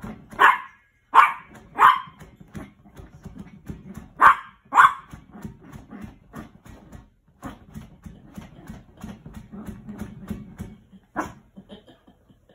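Yorkshire terrier barking in short, sharp barks: three in the first two seconds, two more around four to five seconds in, and one near the end, with quieter scrabbling sounds between.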